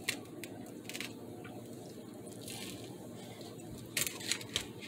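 Toasted sandwich handled on a paper plate: a few faint crackles and taps of crisp toast, then a quick cluster of crackles about four seconds in as a piece is picked up.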